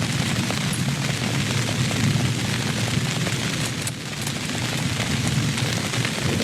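Steady heavy rain with a deep continuous rumble beneath it and scattered sharp drop ticks; the sound dips briefly about four seconds in.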